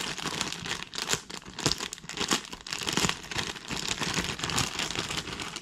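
Clear plastic bag crinkling and rustling as it is pulled open and worked off a helicopter canopy, an irregular run of crackles throughout.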